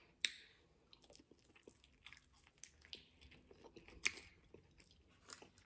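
Faint close-up chewing and wet mouth clicks from a person eating, with a sharp click about a quarter second in and another near four seconds.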